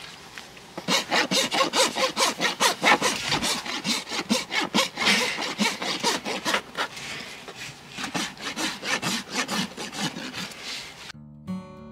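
Farrier's flat hoof rasp filing the wall of a pony's hoof during a trim: quick, rhythmic back-and-forth rasping strokes, several a second, starting about a second in. Acoustic guitar music comes in near the end.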